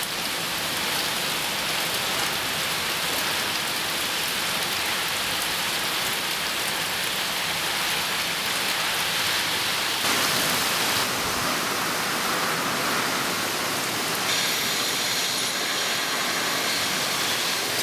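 Heavy hurricane rain falling steadily, with water pouring off a roof edge.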